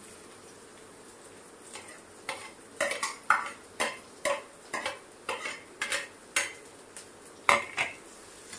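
Metal spatula knocking and scraping against a metal kadhai about twice a second as chopped onions are stirred into hot oil, over a faint sizzle.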